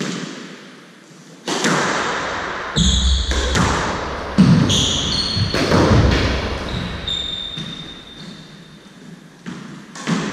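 Squash rally: sharp smacks of the ball off the racket strings and the court walls, echoing in the enclosed court, about one a second and loudest in the middle. Between about three and seven seconds in, high squeaks of court shoes on the wooden floor.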